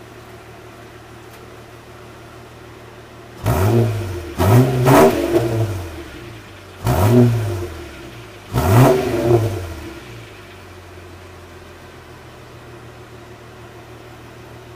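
Holden VT Commodore engine idling, then revved in five quick throttle blips starting about three and a half seconds in, each rising in pitch and dropping back, before it settles to idle again. Heard at the tailpipe, through an exhaust whose rear muffler has been cut out and replaced by straight pipe, the front muffler left in.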